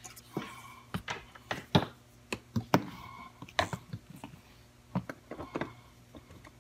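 Handling noise from a soldering station's controller box and its cords: a dozen or so irregular clicks and light knocks as the box is picked up, turned over and set down and the cables are moved about.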